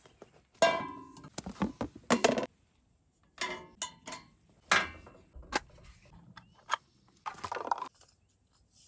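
Camp cookware being handled on a steel hitch-mounted cargo rack: a frying pan set down with a ringing metallic clank about a second in. A run of scattered knocks, clinks and rustles follows as a plate and potatoes are laid out.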